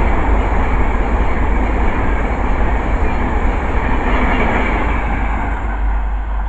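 Passenger train passing at speed, a steady rumble and rush of wheel noise that gradually fades as the train draws away.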